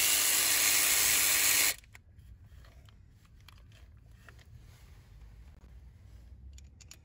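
Power ratchet running on an engine bolt, loud and even, then cutting off sharply a little under two seconds in; after that, faint clicks of the tool and hands working among the hoses.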